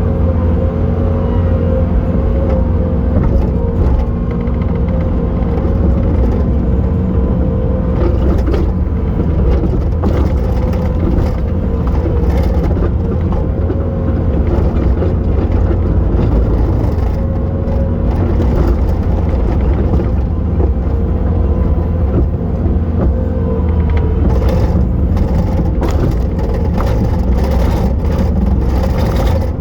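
Bobcat T870 skid steer's diesel engine running steadily under load, with a whine from the drive and hydraulics that wavers in pitch as the machine works. Scattered short knocks come through, most of them in the last few seconds.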